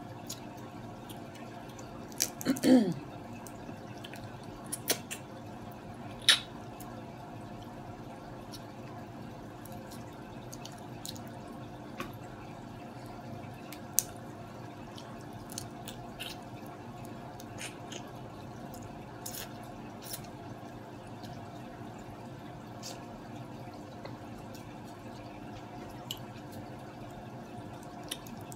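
Blue crab shell being picked apart by hand and eaten: scattered soft clicks, snaps and wet mouth sounds over a steady background hum. A brief voiced "mm" comes near the start.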